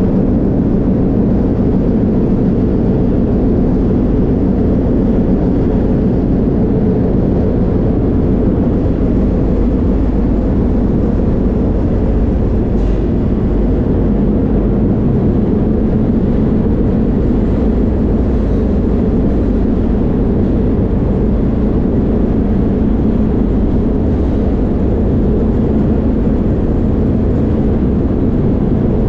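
Steady, loud rumble of a moving freight train heard from inside an open boxcar: the car rolling on the rails.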